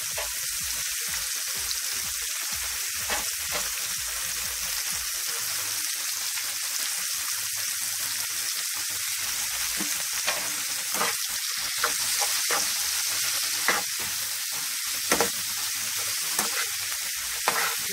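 Saltfish with onions, bell peppers and tomatoes sizzling steadily in oil in a frying pan. In the second half a metal spatula stirs the pan, with sharp clicks and scrapes against it.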